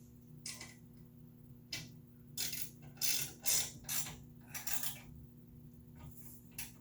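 Ratchet wrench working in a string of short, irregular clicking strokes, bunched near the middle, as M10 bolts on a table saw's front rail are tightened.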